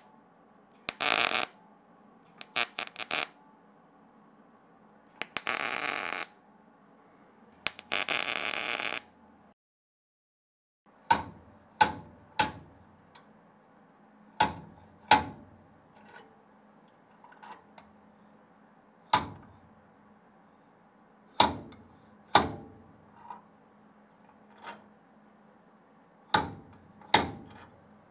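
Wire-feed welder laying quick tack welds on steel pull tabs on the door jamb sheet metal: a few short bursts of crackle. Then a slide-hammer dent puller strikes its stop about a dozen times, giving sharp metallic knocks with a short ring, often in pairs, as it pulls the dent in the Porsche 911 door jamb out.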